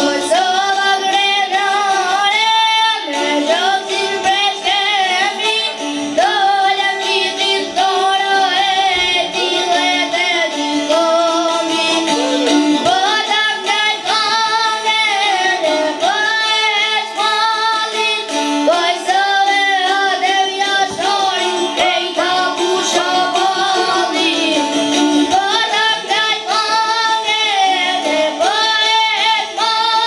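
A young boy singing an Albanian folk song in long, wavering phrases, accompanied by plucked long-necked lutes (çiftelia).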